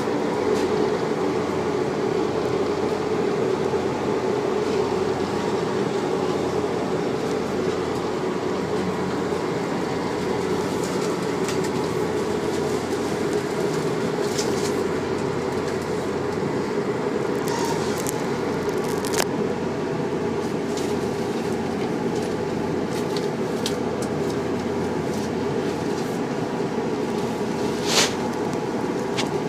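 Passenger train's running noise heard from inside the carriage by the doors: a steady rumble with scattered sharp clicks, one louder click near the end.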